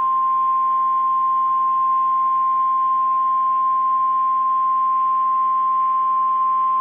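NOAA Weather Radio warning alarm tone, a single steady 1050 Hz tone held unbroken, over faint radio hiss and hum. It is the signal that a weather warning message follows.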